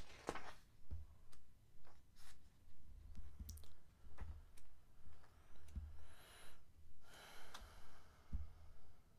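Pages of a hardcover comic book omnibus being turned and handled: scattered light paper clicks and soft knocks, with two longer paper swishes in the second half.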